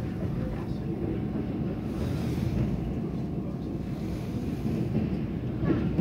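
Steady running rumble of a moving Mugunghwa passenger train, heard from inside the carriage: wheels on the rails and the car's running noise.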